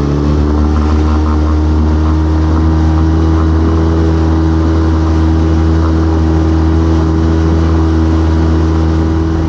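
Small fishing boat's engine running steadily at cruising speed under way, its note holding one pitch, over the rush of water along the hull.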